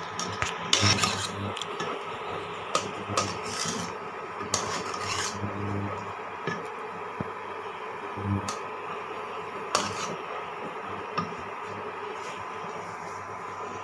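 Metal spatula stirring and scraping along the bottom of a pan of milk as it boils down and thickens, in irregular strokes and light knocks over a steady hiss.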